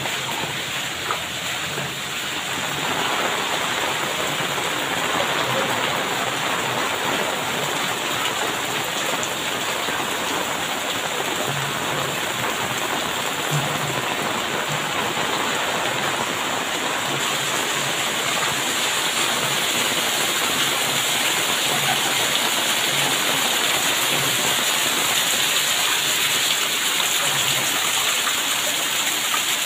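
Heavy rain pouring steadily onto a flooded paved lane, splashing into standing water; it grows a little louder about three seconds in.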